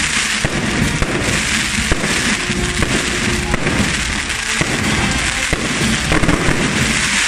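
Fireworks and firecrackers going off in a dense, continuous run of pops and bangs.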